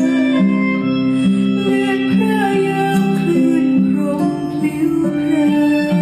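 Music with guitar played back through custom-built loudspeakers driven by a tube amplifier: steady, sustained melodic notes.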